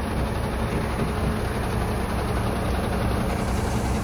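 Heavy truck's diesel engine idling steadily, low-pitched and even.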